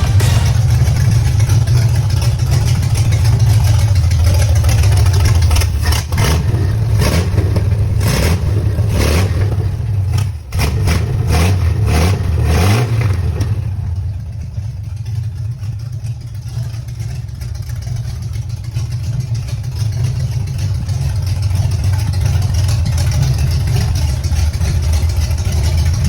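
Chevrolet 4.1-litre 250-S straight-six with a 6-into-2 exhaust header, idling with a deep rumble. Near the middle it is revved in a series of quick blips, then it settles back to a quieter, steady idle.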